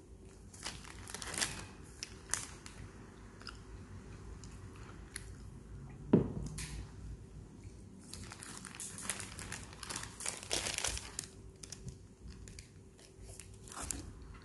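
Paper sandwich wrapper crinkling and tearing as it is handled, in two spells, with chewing between them. A single loud low thump comes about halfway through.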